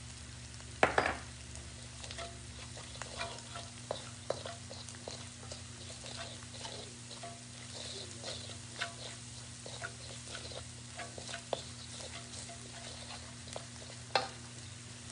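Wooden spoon stirring and scraping a spice paste frying in a metal wok, with many small clicks over a quiet sizzle and a steady low hum. Two sharp knocks stand out, about a second in and near the end.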